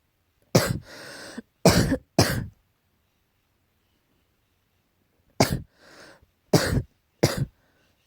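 Allergy coughing in two bouts about three seconds apart. Each bout is one sharp cough, a short rasping breath, then two more quick coughs.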